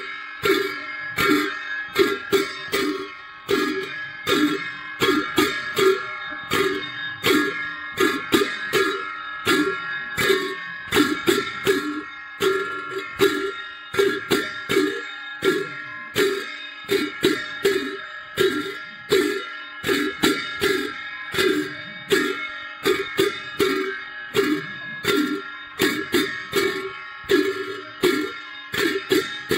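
Dance music played on a plucked string instrument, a steady, evenly repeating rhythm of sharp plucked notes.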